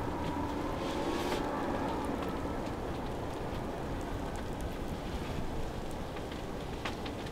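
Falling snow pattering on the fabric of a hunting ground blind: a steady hiss of small scattered ticks over a low rumble.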